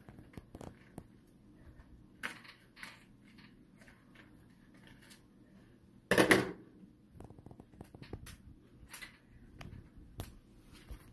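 A package being handled and cut open with kitchen scissors: scattered small clicks and crinkles, with one louder crunch about six seconds in.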